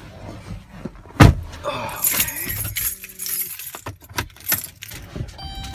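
Handling noise inside a car: a loud thump about a second in, then a bright rattle and scattered clicks.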